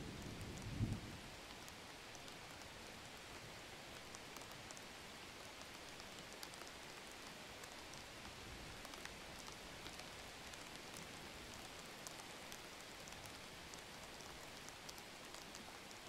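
Faint, steady hiss of light rain with scattered small drop ticks. A low rumble ends in a dull thump within the first second.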